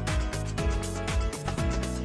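Background music with a steady beat and a deep sliding bass.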